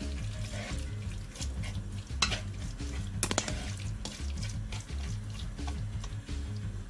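Background music with a repeating bass line, over light kitchen cookware sounds: a sharp clink about two seconds in and a quick double clink a little after three seconds.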